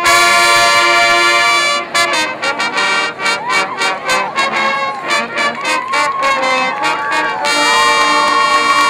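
A high school marching band plays, its brass holding a loud chord for about two seconds. A stretch of short sharp hits with shifting brass lines follows, and near the end the band settles into another long held chord.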